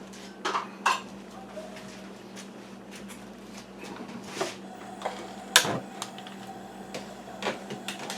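Kitchen handling noises: a scattered series of clicks and knocks from cookware and utensils being set down and moved, the loudest a little past halfway, over a steady low hum.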